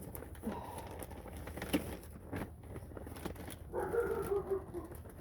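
Northern bobwhite quail giving soft, low calls: a short one about half a second in and a longer, slightly falling one near the end. Scattered light clicks run between them.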